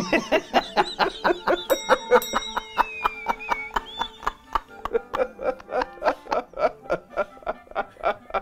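Two men laughing hard, a long run of rapid 'heh-heh-hah' bursts, about five a second. From about two to four seconds in, an added high tone slides downward over the laughter.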